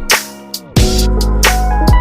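Background music with a drum beat and deep bass; the beat drops out briefly about half a second in and comes back under a second in.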